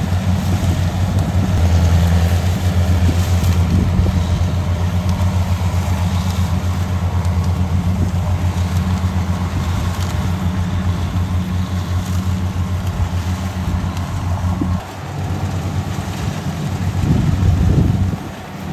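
Kubota combine harvester's diesel engine running steadily under load while it cuts and threshes rice, with a strong low drone. About fifteen seconds in the drone drops away, and wind buffets the microphone near the end.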